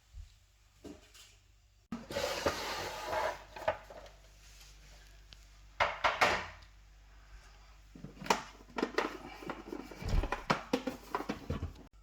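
Handling noises as an espresso machine is moved into place: irregular knocks, scrapes and rubbing, with a sharp clatter about halfway through and a run of smaller knocks near the end.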